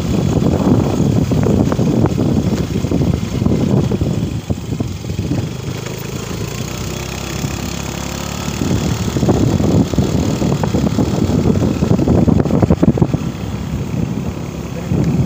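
Motorcycle engine running as it rides along a road, with a steady rumble of riding noise. It eases off for a few seconds in the middle and picks up again.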